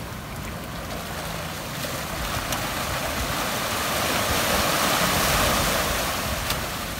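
Surf washing up a concrete boat ramp: a wave surges in, building to its loudest about four to five seconds in, then falls away.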